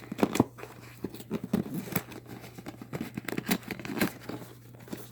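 Headphone packaging being opened by hand: irregular crinkling, tearing and tapping handling noises, over a low steady hum.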